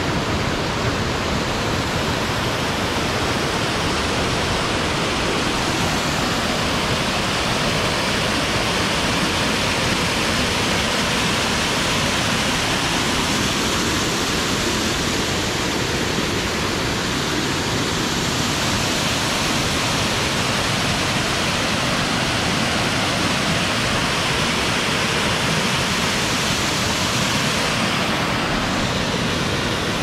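Waterfall: the steady rush of falling water, an even noise with no breaks.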